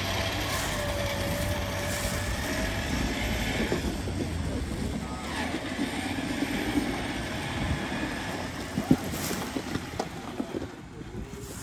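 Jeep Wrangler Rubicon engine running in four-low while an Open Road 4x4 Panther Series electric winch with synthetic line pulls the Jeep up a steep, slick climb. A single sharp knock comes about nine seconds in.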